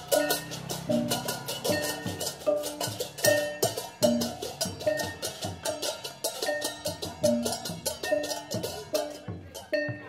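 Percussion-led music of rapid, evenly spaced strikes with repeated pitched, bell-like struck notes. It fades out about nine seconds in.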